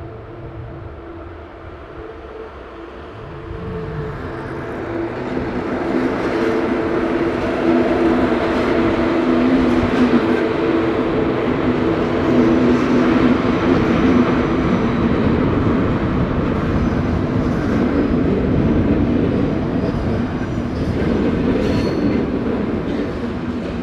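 A train moving along the platform close by: its running rumble grows louder about four seconds in and then holds steady, with a steady hum of several low tones under it.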